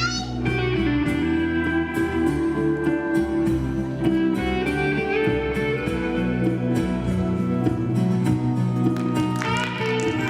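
Music with plucked guitar over a steady beat, and a higher melody line coming in near the end.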